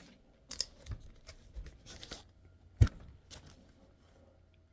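Rustling and handling of packaged heat transfer vinyl sheets being sorted by hand: scattered short crinkles and clicks, with one sharper knock a little under three seconds in.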